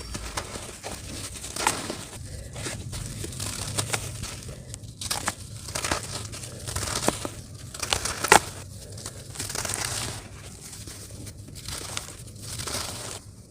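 Clumps of dry dirt being crushed and crumbled, a continuous run of small crunches and crackles with one sharp crack about eight seconds in.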